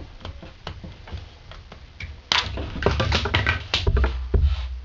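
Small plastic and metal parts of a truck seatbelt retractor clicking and clattering as the housing is taken apart by hand, with a few scattered clicks and then a quick run of them about two seconds in.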